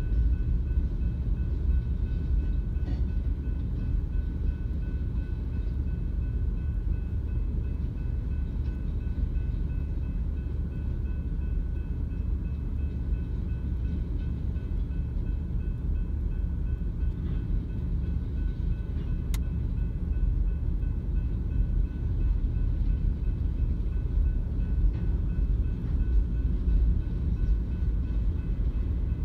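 Slow freight train of covered hoppers and tank cars rolling through a grade crossing: a steady low rumble of wheels on rail, with a faint steady high tone over it.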